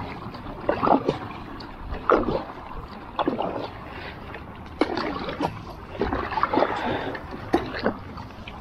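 Paddle strokes from a paddle board: about six splashes and swishes of the blade in the water, roughly one every second and a half, a couple with a sharp knock.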